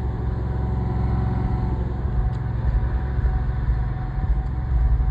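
An engine running steadily, a constant low drone that does not change in pitch.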